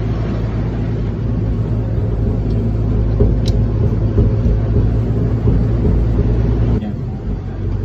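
Steady low rumble with a light hiss over it, and one brief faint click about three and a half seconds in.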